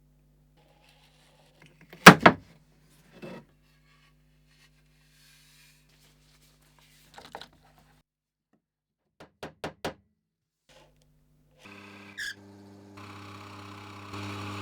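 Several sharp knocks and thuds of wood and tools being handled, the loudest about two seconds in, with a quick run of three clicks near the middle. Near the end a steady motor hum starts, with a hiss over it.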